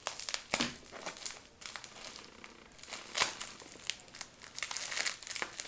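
Plastic packaging crinkling and crackling as it is handled, with irregular sharp crackles throughout.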